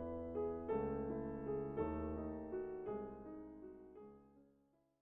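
Solo piano music, a new chord struck about every second, fading out over the last two seconds.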